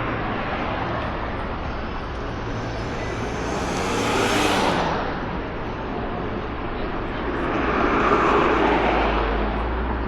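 Busy city street traffic, a steady rush of vehicles. One passes close about four seconds in, its sound falling in pitch as it goes by, and another swells past around eight seconds in.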